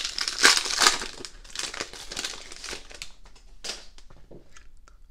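Foil wrapper of a Donruss Optic basketball card pack crinkling as it is torn open and peeled back, loudest in the first second and dying away over about three seconds, with a few faint ticks near the end.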